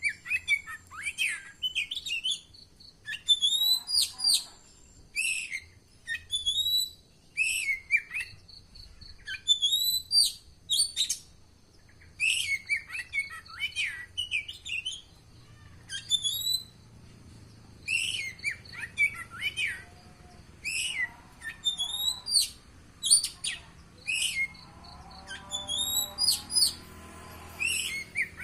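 Oriental magpie-robin singing: short, sharp, high chirping phrases repeated about once a second, in the bird's loud, aggressive 'fighting' song.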